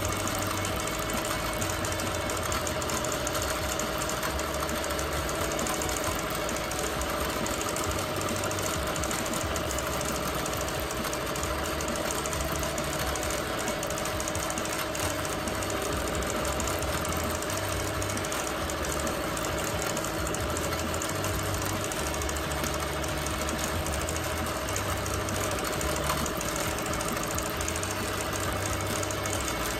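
Bernina Q24 longarm quilting machine running steadily as it free-motion stitches, with a constant hum.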